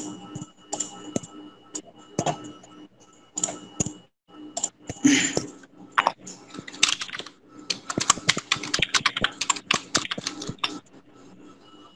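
Computer keyboard typing: scattered keystrokes, then a fast run of keys from about halfway through as an address is typed.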